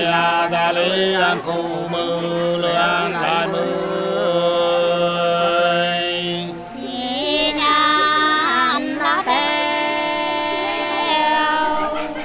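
Unaccompanied Nùng sli folk singing: a voice holding long, slightly wavering notes in two drawn-out phrases. The second phrase begins about seven seconds in and is pitched higher.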